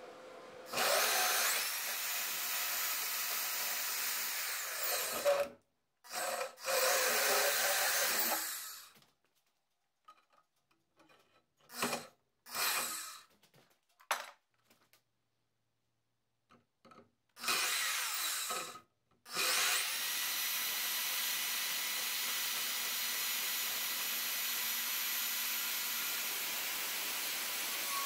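Milwaukee portable bandsaw cutting through aluminum angle stock clamped in a vise. It runs in several stretches with short stops and brief starts, then makes one long, steady cut near the end.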